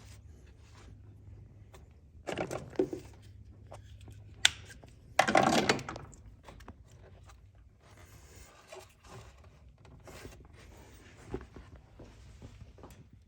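Hands working with tools and car parts: a few sharp clicks and two short scraping, rustling bursts, the louder one about five seconds in, over a low steady hum.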